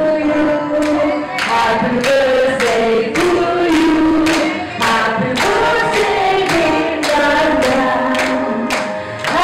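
A woman singing a melody into a handheld microphone, holding long notes in short phrases, with hand-clapping in time about every half second.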